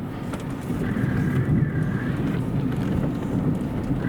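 Steady low rumble of a vehicle mixed with wind noise, with a faint high tone sounding from about one to two and a half seconds in.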